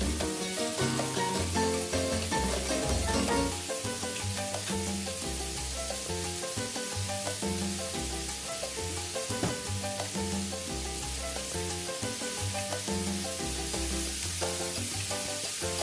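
Squash pieces sautéing in hot oil with garlic, onion and ginger in the pan, sizzling steadily. Background music with a bass line plays over it.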